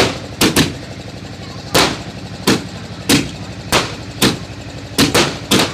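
Fireworks bursting overhead: about a dozen sharp bangs at uneven intervals, one or two a second, some in quick pairs, over a steady low hum.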